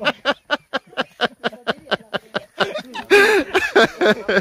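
People laughing in rapid, even bursts, about six a second, with a louder burst of laughter about three seconds in.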